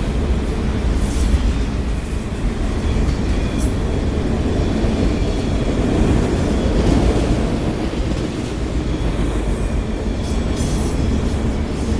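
A freight train's cars, mostly autoracks, rolling past at steady speed: a continuous low rumble of steel wheels on rail, with a few sharp clicks as wheels cross rail joints.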